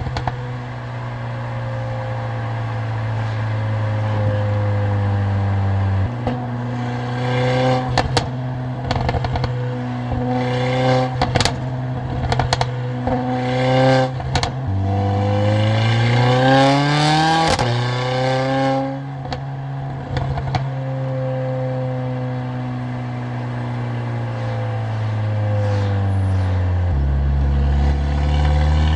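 Mercedes-AMG CLA45's turbocharged four-cylinder and loud exhaust under way, mostly holding a steady drone with sudden steps in pitch at gear changes. In the middle it accelerates, the pitch rising for a couple of seconds before dropping at a shift, with a scatter of sharp exhaust pops around it.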